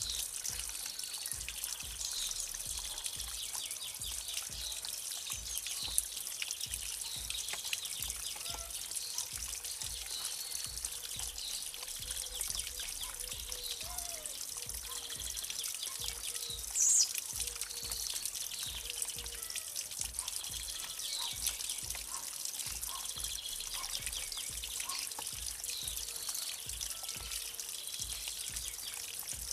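Water trickling and splashing down a small stone-and-cement garden waterfall into a fish pond, with birds chirping now and then. A brief, sharp high sound just past halfway is the loudest moment.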